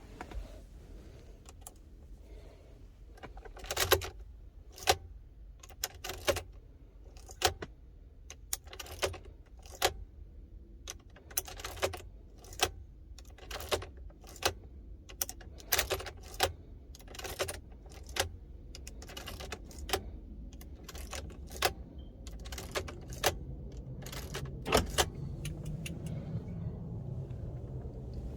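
Car keys jangling and clicking, a string of sharp irregular clicks about one or two a second, as a new key fob is programmed to the car. A low steady hum grows louder over the last few seconds.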